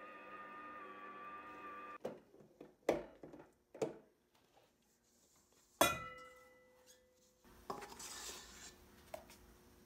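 Kitchen sounds: a steady electric hum cuts off about two seconds in, then a few knocks and one sharp clink of dishware that rings briefly, followed by rustling.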